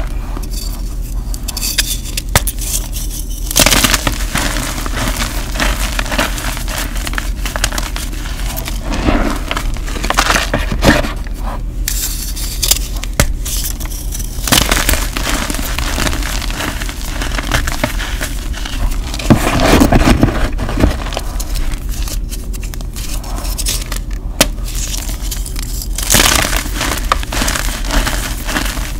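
Blocks of gym chalk crunching and crumbling as fingers squeeze them into powder: a dense run of small crackles, with louder crunches every few seconds.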